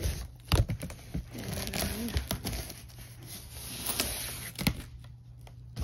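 Cardboard box being handled: flaps scraping and rubbing, with several sharp knocks against the cardboard.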